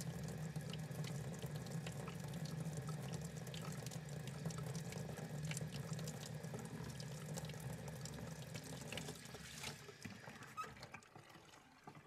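Water running steadily from a faucet into a sink, with small drips and ticks, fading off over the last couple of seconds.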